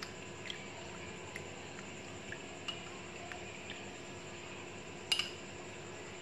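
Light scattered clicks of a metal spring whisk tapping a small ceramic bowl as custard powder is mixed into milk, with a louder clatter about five seconds in as the whisk is laid down in the bowl. A faint steady hum runs underneath.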